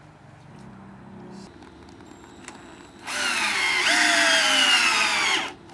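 Cordless drill with a socket driving an M8 coach screw into timber for about two and a half seconds, starting about three seconds in; its motor pitch falls steadily as the screw bites and the load builds, then it stops abruptly.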